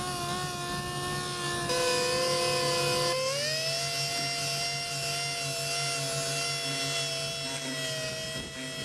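Electric machine polisher running with a steady whine over a car's paintwork as a touched-in scratch is polished. Its pitch steps once and then rises about three seconds in before holding steady.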